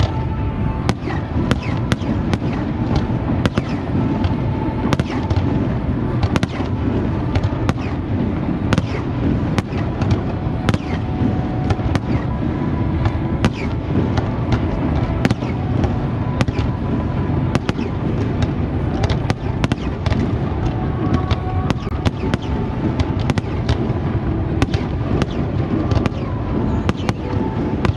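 Aerial fireworks display going off without pause: a continuous rumble of bursts with many sharp cracks and bangs throughout.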